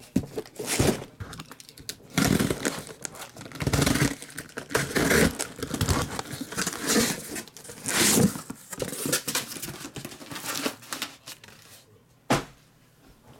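A cardboard shipping case and the shrink-wrapped card boxes inside it being handled and unpacked: irregular bursts of scraping cardboard and crinkling plastic wrap. A single sharp knock comes near the end.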